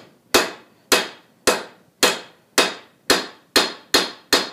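Hand hammer striking a red-hot bar of coil spring steel held against the anvil: nine sharp, ringing blows a little under two a second, coming slightly faster near the end, as the hot stock is straightened and squared up.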